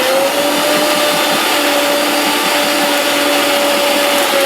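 Electric mixer grinder running, grinding coconut, cumin and green chillies with curd into the pachadi paste. The motor spins up at the start, holds a steady whine, and its pitch begins to drop near the end as it slows.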